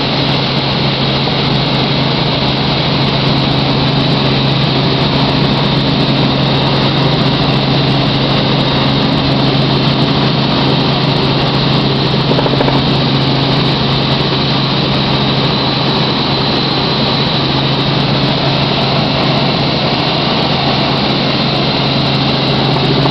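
Helicopter in flight: steady, loud engine and rotor noise with a constant low hum that does not change.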